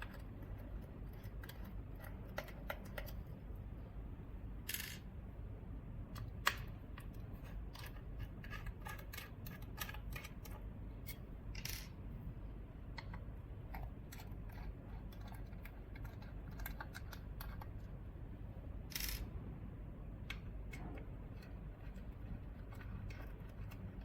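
Small sharp clicks and taps of tools and parts being handled while a small device is taken apart, with two brief scrapes, one about five seconds in and one near the end, over a steady low hum.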